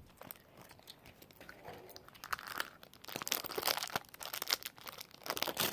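Plastic wrapping of an L.O.L. Surprise toy crinkling and tearing as it is opened by hand, sparse at first and busier from about two seconds in.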